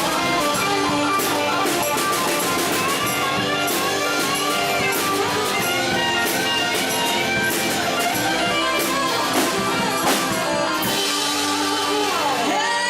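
Band playing an instrumental passage: electric guitar over a drum kit, with a long falling slide of a guitar note near the end.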